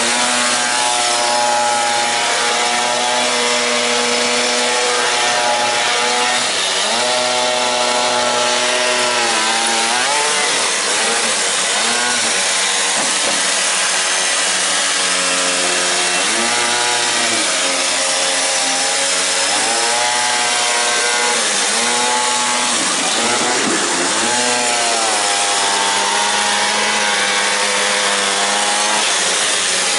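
Small two-stroke gasoline engine of a quarter-scale RC truck running hard, its pitch rising and falling again and again as the throttle is opened and closed.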